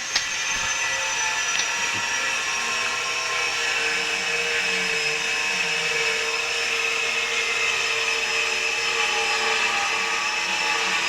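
Steady drone of a running motor: a whine of several held tones, the highest drifting slowly lower. There is one sharp click just after the start.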